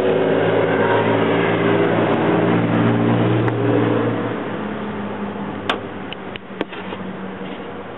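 A vehicle engine running with a steady hum that fades away about four seconds in. It is followed by two sharp metal clicks about a second apart, from pliers snapping on a spring hose clamp.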